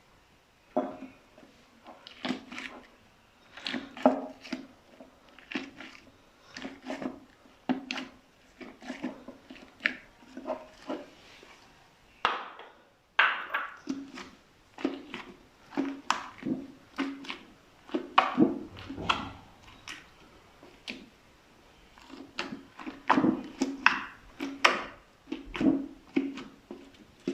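Slime being pressed and squeezed by hand, giving an irregular run of sharp wet pops and squelches in clusters with short pauses.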